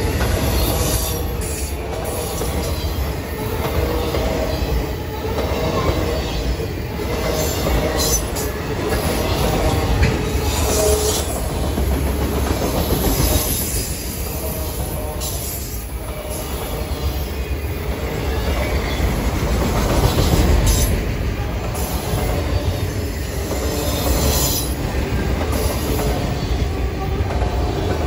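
Autorack freight cars rolling past: a steady rumble and clatter of steel wheels on the rails, with a faint wheel squeal and a few louder clanks.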